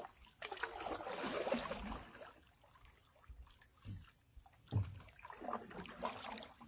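Canoe paddle strokes, with water swishing and trickling off the blade. Two short low thumps come about four and five seconds in.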